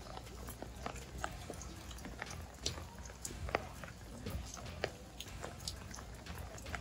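Sparse raindrops tapping irregularly on an umbrella, a few sharp ticks a second, over a steady low rumble.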